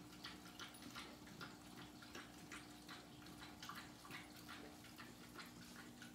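Faint, irregular crunching clicks, several a second, from a cat eating dry treats with its head inside a shopping bag, over a steady low hum.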